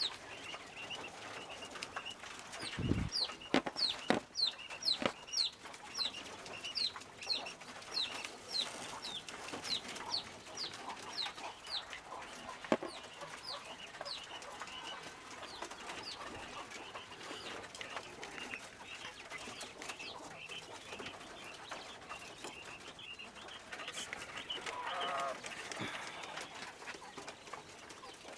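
Caged quail chirping: a long run of short, high, falling chirps, two or three a second, thinning out after about halfway, with knocks and rattles from hands working in the wire cages and one heavier thump about three seconds in.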